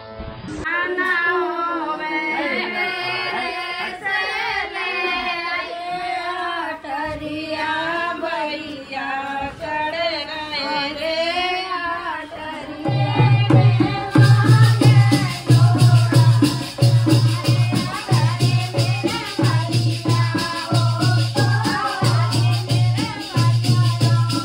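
Music: a song with a voice singing. About halfway through, a heavy bass beat and a fast rattling shaker rhythm come in under the voice.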